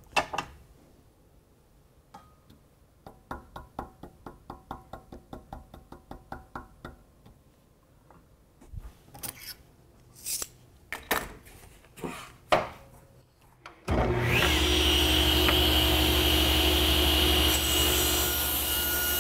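Light rapid taps, about five a second, then a few louder knocks as a table saw fence is tapped over by a few thousandths of an inch. About fourteen seconds in, the table saw starts abruptly with a short rising whine and then runs steadily.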